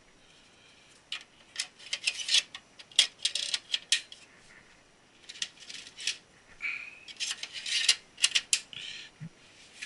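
Irregular clicking and rattling of metal and plastic parts being handled in a server case's hot-swap drive bays, in three bursts with a brief low knock near the end.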